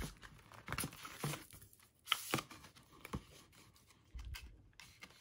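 Paperboard Apple Watch band packaging and a rubber sport band being handled: scattered light scrapes, taps and rustles, with a soft low bump a little after four seconds.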